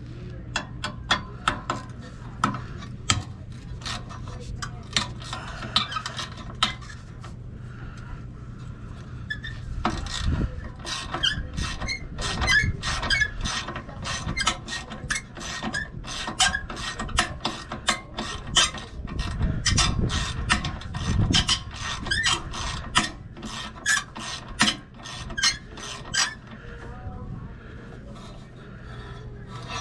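Hand tools working on metal fasteners: a ratchet wrench clicking in short strokes with metal scraping and knocks, busiest through the middle.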